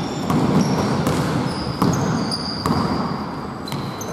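A basketball being dribbled on a hardwood gym floor, with several short high squeaks of sneakers on the court, echoing in a large hall.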